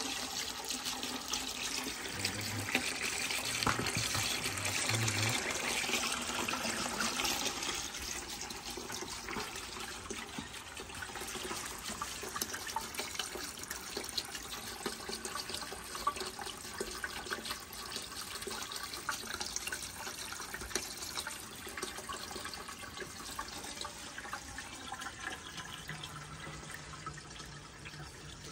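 Water running through a homemade PVC-pipe black-sand separator and pouring into its plastic swirl pan, a steady splashing trickle that is loudest in the first several seconds and then settles.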